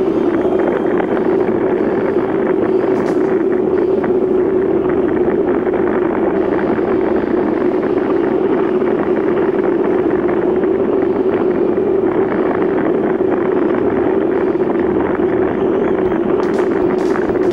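Vehicle engine running at a steady, unchanging speed while driving along a dirt track, with road and wind noise.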